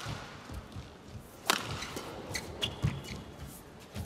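Badminton rally: rackets smacking the shuttlecock, three sharp hits about a second and a half and two and a half seconds apart, with fainter taps between.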